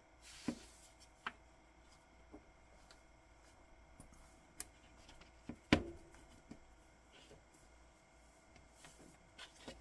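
Scattered small clicks and taps of hands taking a leather watch strap off a watch case, with one louder knock a little after halfway.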